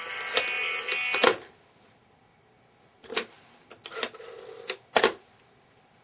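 Music playing from a laptop cuts off about a second in, as a command dialled on a rotary telephone to stop the audio takes effect. After that come a few sharp clicks and short rattles from the rotary desk phone being handled, its dial and handset clacking.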